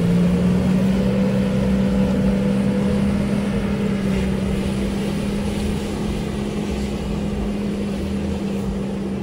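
Mitsubishi Pajero engine held at high revs in one steady note as the vehicle strains to pull itself out of a waterlogged, puddled paddy field where it is stuck, its wheels churning mud and water.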